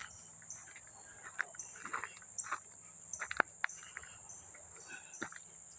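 Insects in the woods making a steady, high-pitched shrill drone that pulses regularly. Scattered short crunches and clicks, the hiker's footsteps on the trail, sound over it.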